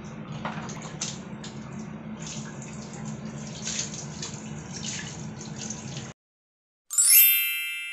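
Water poured from a dipper splashing over a wet husky puppy and dripping onto a tiled floor, with repeated splashes, stopping abruptly about six seconds in. A second later a bright chime rings out and fades.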